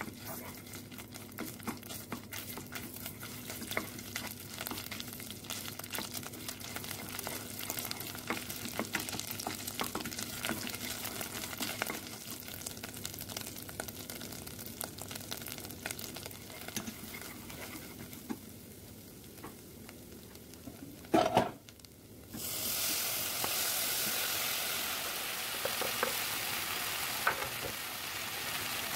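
Red pepper paste and pepper flakes crackling and sizzling in hot oil in a pot while a wooden spatula stirs them. About 21 seconds in there is a brief loud knock. Then chopped tomatoes go in and the sizzle turns into a louder, steady hiss.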